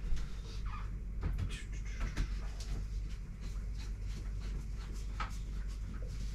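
Scattered light clicks and knocks of objects being handled and moved about, over a steady low hum.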